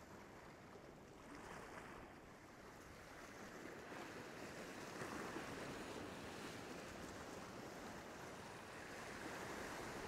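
Faint wash of small sea waves breaking and draining over a rock ledge, swelling a little about a second in and again a few seconds later.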